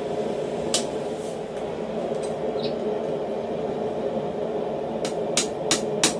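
Hand hammer striking a hot, twisted railroad-spike bottle opener on a steel block, bending a slight curve into it: one blow early, then four quick blows about a third of a second apart near the end, over a steady low hum.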